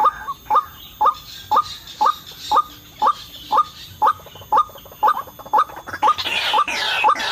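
White-breasted waterhen calling: a short rising note repeated evenly about twice a second. Near the end a rougher, higher chattering joins in.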